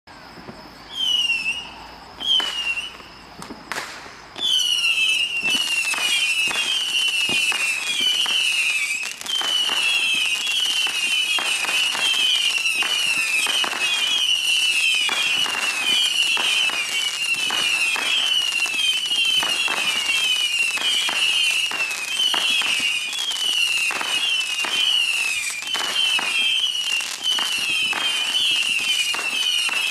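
A 200-shot Saturn missile battery firing its small whistling rockets: each shot is a short, high whistle with a sharp pop. A few single shots come first, then from about four seconds in the shots run together in a fast, unbroken string.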